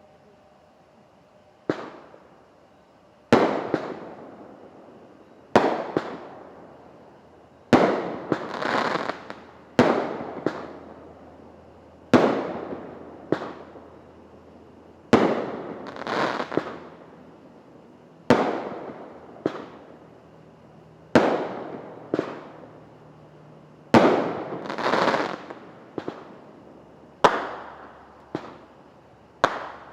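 Liberty Bell brand consumer fireworks going off in a long series of sharp bangs, about one every second or two, starting a second or two in. Several bangs are followed by a swelling rush that fades away.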